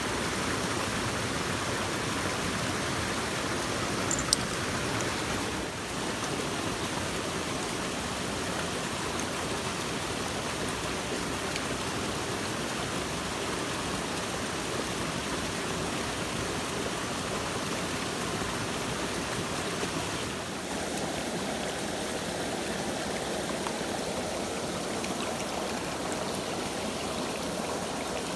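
Mountain stream rushing steadily over rocks, with one sharp click about four seconds in.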